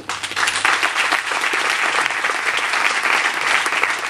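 Audience applauding, many hands clapping at a steady level, starting right after a speaker finishes a sentence.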